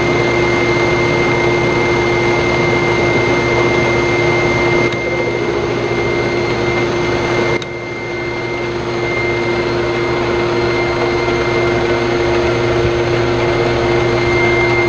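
Shop vacuum running steadily, its hose drawing chips off a metal lathe, with a steady whine over the rush of air. About seven and a half seconds in it drops suddenly in level and then builds back up.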